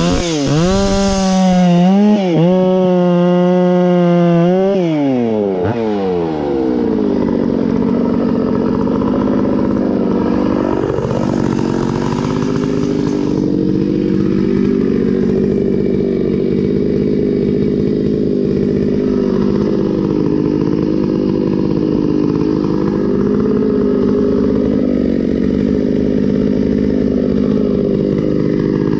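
Stihl 066 Magnum two-stroke chainsaw with a freshly rebuilt top end, screaming at high revs with a few quick dips in the first few seconds. About five seconds in its pitch drops, and it then runs on steadily under load with the revs wavering, cutting through wood.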